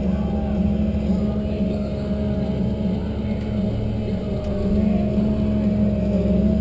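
Tigercat 1075B forwarder's diesel engine and crane hydraulics running steadily, heard inside the cab, with a constant whine over the engine hum; the sound grows a little louder about five seconds in as the crane works.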